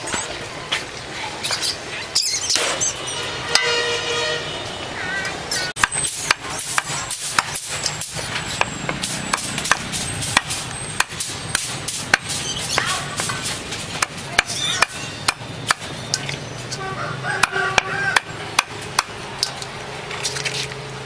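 Sharp, irregular knocks, at times several a second, over a busy background, with voices talking briefly.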